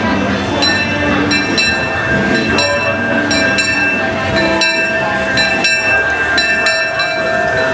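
The C.K. Holliday, a steam locomotive, rolling slowly into the station, with a run of sharp metallic dings over a steady high squeal and low rumble.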